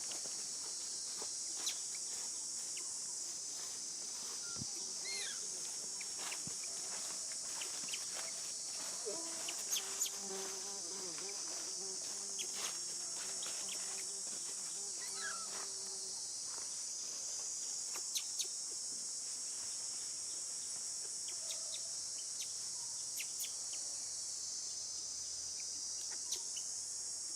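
Steady high-pitched chorus of insects drones throughout, with scattered small clicks and a few faint chirps over it.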